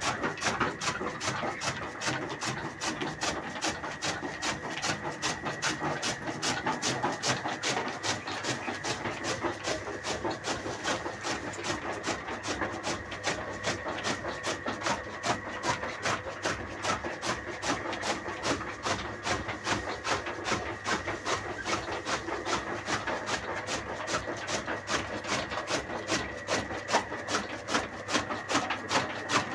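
Powered chaff cutter running and chopping fodder: a fast, even run of cutting strokes over a steady high hum from the machine.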